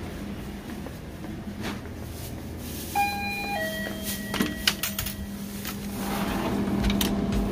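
A two-note electronic chime about three seconds in, a higher tone then a lower one. Clicks and knocks follow as the glass door of a drinks refrigerator is handled and pulled open, over a steady low hum.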